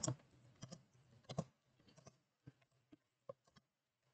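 Computer keyboard being typed on: faint, irregular key clicks, several a second at first, thinning out toward the end.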